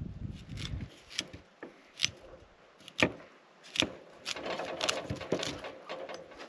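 Chef's knife cutting broccoli on a wooden cutting board: a series of separate sharp knocks as the blade strikes the board, roughly one a second.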